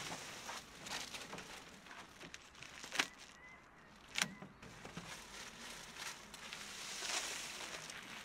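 Thin plastic film crinkling and rustling as it is handled and pulled off a large clear plastic sheet, with two sharp snaps about three and four seconds in.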